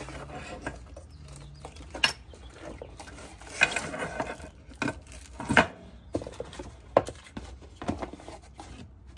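Parts being unpacked and handled on a metal table: irregular clicks, clatters and a few sharp knocks, with rustling of cardboard and plastic packaging.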